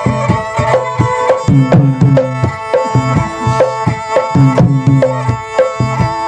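Background music: repeated hand-drum strokes with short falling pitch bends over steady sustained instrumental tones, with no singing.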